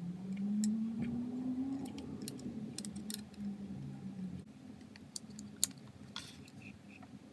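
Light clicks and taps, scattered and irregular, as from small plastic pieces being handled, over a low hum that rises in pitch during the first two seconds and holds until about halfway through.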